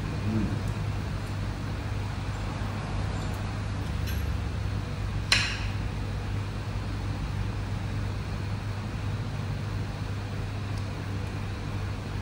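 Steady hum of street traffic, with a single sharp clink of cutlery on a plate about five seconds in.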